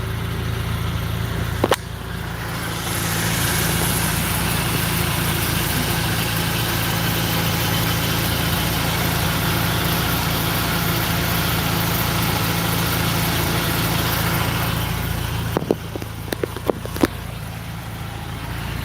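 BMW car running, a steady engine hum under road and tyre noise that swells about three seconds in and falls away near the end. A sharp click comes about two seconds in, and a few more shortly before the end.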